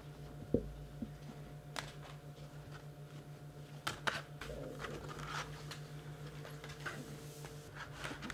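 Basset hound puppies scrambling and mouthing about on blankets in a plastic pool: scattered light clicks, taps and rustles, with a dull knock about half a second in, over a steady low hum.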